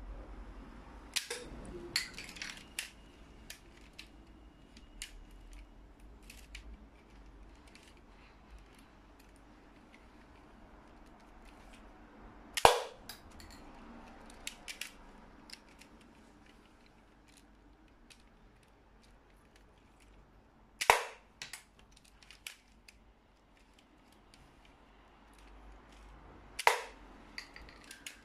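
LEGO Kar98k rifle model firing three times: each shot is a sharp plastic snap of the trigger mechanism, the first about halfway through and two more near the end. Smaller plastic clicks and rattles of the bolt and brick parts come between the shots, most of them in the first few seconds.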